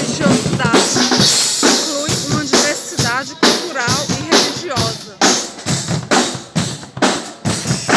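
Festival percussion band (bateria) drumming a steady march beat on bass and snare drums, about two strokes a second.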